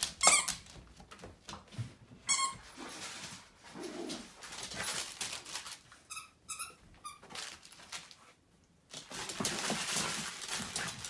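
Puppies playing with their toys: scuffling and rustling, with a few short high squeaks, one near the start, one about two seconds in and a quick run of three or four about six seconds in, and steadier rustling near the end.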